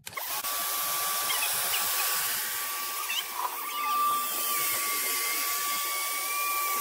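Small electric air pump switching on and running steadily, a constant whine over rushing air, as it blows air through the valve into the last air chamber of an inflatable children's pool.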